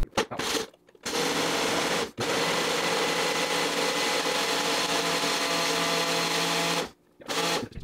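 Ninja BL660 1100-watt blender motor spinning the Nutri Ninja extraction blades in a single-serve cup of frozen berries, greens and liquid. A couple of short pulses come first, then it runs steadily for about six seconds, cuts off, and gives one more short pulse near the end.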